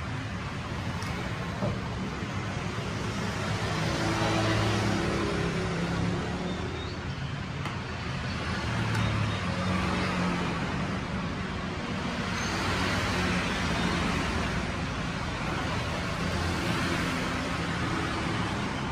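Motor traffic going by: vehicle engines and road noise that swell and fade as they pass, several times over.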